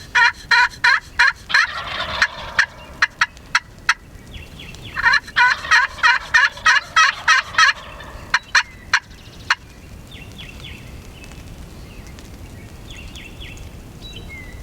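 Wild turkey toms gobbling: two long rounds of rapid gobbling, the first right at the start and the second about five seconds in, each tailing off into a few separate notes. Fainter small-bird chirps follow near the end.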